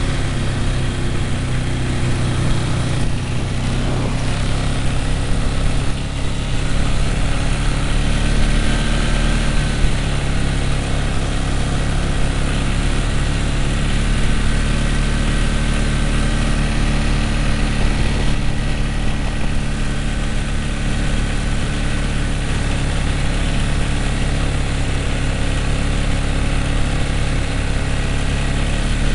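ATV engines running steadily while riding, a continuous even drone with a constant pitch.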